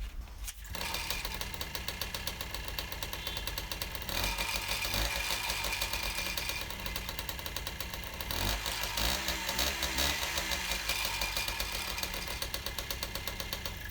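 Piaggio moped's 50cc single-cylinder two-stroke engine starts just under a second in, then runs and is revved up twice, about four and eight seconds in. With a new Eyquem 705 spark plug fitted, it picks up without stumbling on acceleration, which points to the old Champion plug as the cause of the fault.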